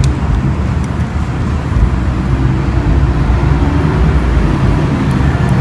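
Steady low rumble of outdoor background noise that runs on without a break, with a faint click at the start.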